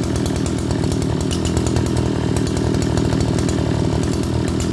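Zenoah Komatsu G3K 34 cc two-stroke brush cutter engine running steadily at idle, with a sharp, crisp exhaust note.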